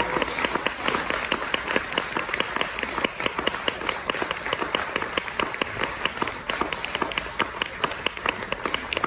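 Audience applauding, a dense patter of many claps.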